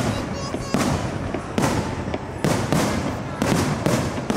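Aerial firework shells bursting in quick, irregular succession, about ten sharp bangs in four seconds, each trailing off in a low rumbling echo.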